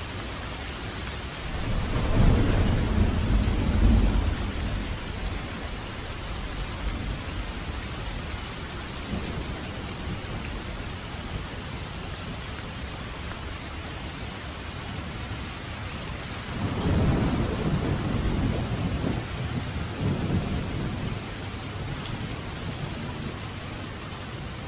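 Steady light rain hissing, with two rolls of distant thunder rumbling low, one a couple of seconds in and a longer one just past the middle.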